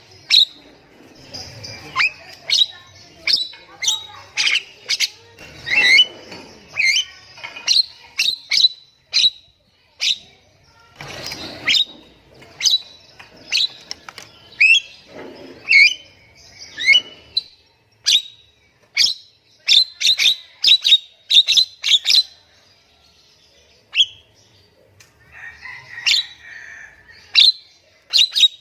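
Nias hill myna calling: loud, sharp whistled notes and clicks in quick succession, some sliding down in pitch, with a short lull about three-quarters of the way through.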